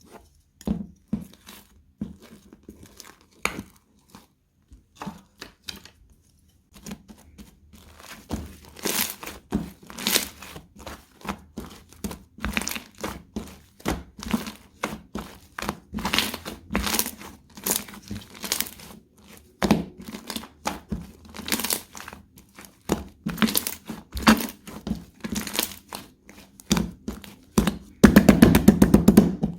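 Slime being squeezed and stretched by hand, its trapped air bubbles popping in crisp clicks and crackles, with a fast run of pops near the end.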